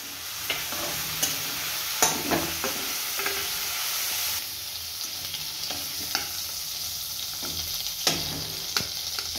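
Prawns sizzling in hot oil in a kadhai, with a spatula scraping and knocking against the pan as they are stirred and lifted out. The sizzle eases a little about halfway through.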